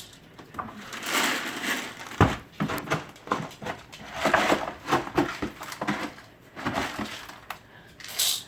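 Dry puppy kibble being scooped with a measuring cup and poured into a bowl: irregular rattling and scraping of the pellets, with a sharp knock about two seconds in.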